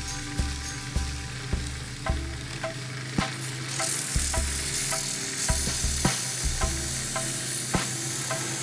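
Sandpaper hissing against a pool cue shaft spinning in a cue repair lathe, setting in about four seconds in. Background music with a steady beat plays throughout.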